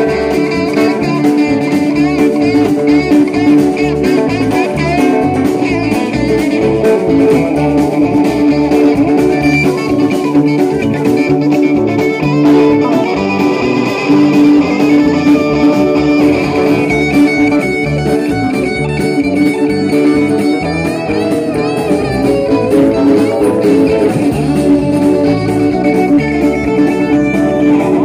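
Live rock band playing: electric guitars over bass and drums, with a steady beat and long sustained guitar notes.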